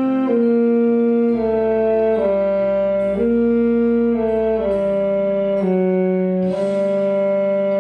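Yamaha YAS-62 alto saxophone with a Selmer S80 C* mouthpiece playing a slow melody of held notes, about one a second, stepping down and back up, then holding a longer note from about two-thirds of the way in.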